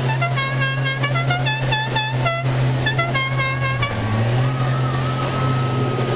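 Demolition-derby school bus engines running, with a horn sounding a rapid series of short toots over the first four seconds, then a longer wavering tone.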